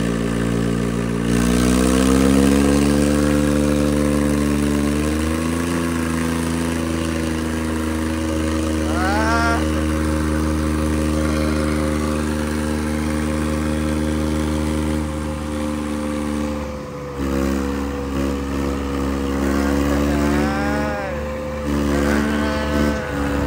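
Two tractor diesel engines, an 855 and a 735, straining against each other in a tug of war. They rev up over the first few seconds, then hold high, steady revs under heavy load, dipping briefly about two-thirds of the way through.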